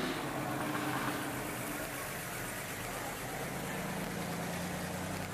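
Engine of a 1940s-style classic car running at low speed as it drives slowly past. About three and a half seconds in, a second car's lower, steady engine note takes over as the next car approaches.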